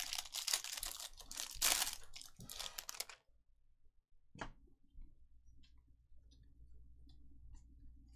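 Plastic trading-card pack wrappers crinkling and tearing for about three seconds as packs are ripped open. Then faint clicks from the cards being handled, with one sharper tick about halfway through.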